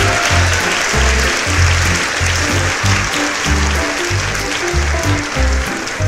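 Upbeat background music with a steady, rhythmic bass line under a dense hissing wash.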